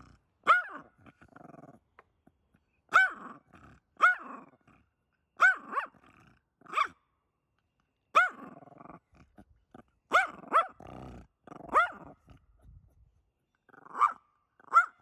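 A dog barking: short single barks about every second, with a brief pause near the end.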